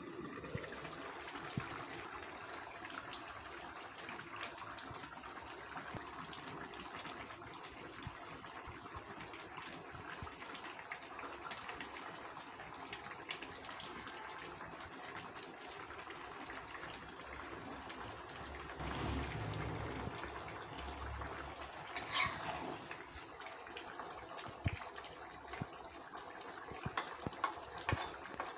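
Shutki curry with okra bubbling as it simmers in a metal pot on the stove, a steady hiss. There is a short clatter about two-thirds of the way through, and a metal spatula clicks and scrapes against the pot near the end.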